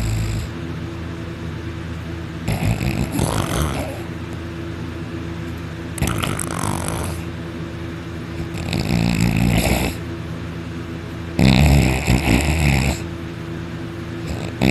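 A person snoring hard in deep sleep: a loud snore about every three seconds, each lasting a second or so, over a steady low hum.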